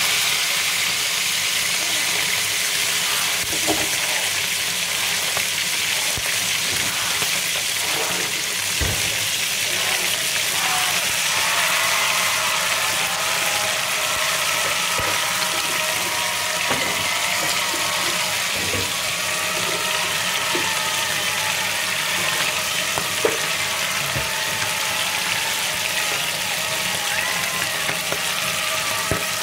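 Whole fish shallow-frying in hot oil in a pan, a steady sizzle. A few sharp knocks come in the first several seconds as tongs turn the fish against the pan.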